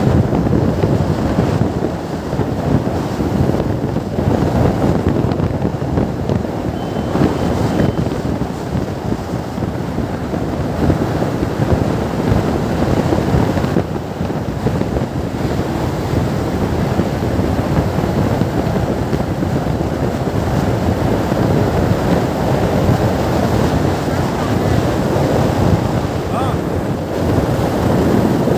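Heavy wind buffeting on the microphone of a Hero Xtreme 160R riding at high speed, with the motorcycle's single-cylinder engine running under the wind noise.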